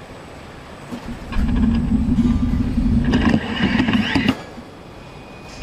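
Automated nutrunner spindles driving bolts into a car's underbody panel: a steady motor buzz starts about a second and a half in, picks up a higher whine toward the end and cuts off suddenly after about three seconds.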